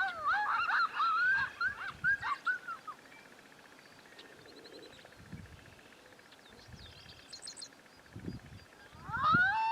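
A group of coyotes yipping and howling in quick, wavering, sliding calls for about the first three seconds, then falling quiet apart from a few faint bird chirps and low thumps. Near the end a rising tone swings up and settles into a long steady note.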